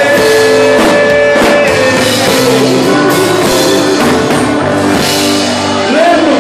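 Live sertanejo band playing an instrumental passage between sung lines, with held chords and a drum kit keeping the beat.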